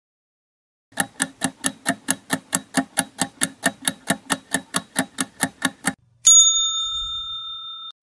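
Countdown timer sound effect: clock-like ticking, about three ticks a second for about five seconds, then a single bell ding that rings on for nearly two seconds, signalling that time is up.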